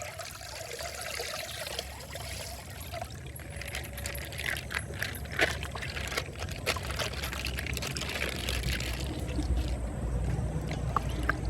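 Water pouring and trickling out of a punctured plastic ice bag, with scattered small clicks and rustles of the plastic.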